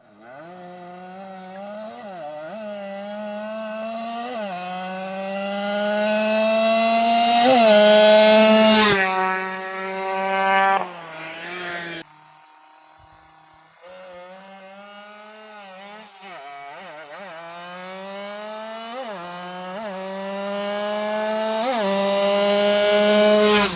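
Tuned 116cc Yamaha F1ZR two-stroke moped engine buzzing at high revs, its pitch climbing slowly with short blips of the throttle. It drops back, cuts off suddenly about twelve seconds in, then comes back about two seconds later and climbs again to its loudest near the end.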